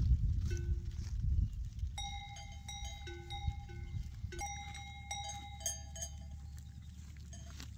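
Bells on a grazing goat herd clanking and ringing at several different pitches, in irregular overlapping strokes that become frequent from about two seconds in. Wind rumbles on the microphone during the first second and a half.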